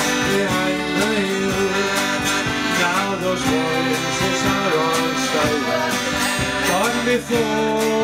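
Live band playing an instrumental passage of a folk ballad, with electric guitar, bass guitar, drums and accordion.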